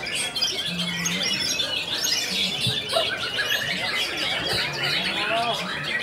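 White-rumped shama (murai batu) singing in its cage amid a dense chorus of many other songbirds: rapid, overlapping chirps, trills and whistles.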